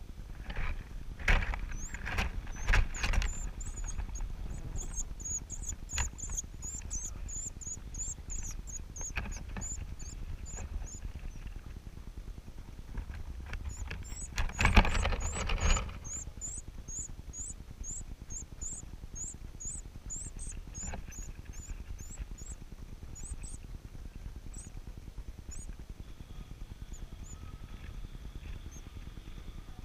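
Nestlings in a rufous-collared sparrow nest, a sparrow chick and a parasitic shiny cowbird chick, begging with rapid runs of thin, high-pitched cheeps as an adult comes to feed them. A flurry of rustling and wing fluttering at the nest comes near the start and again about halfway, the loudest sounds; the begging carries on for several seconds after each.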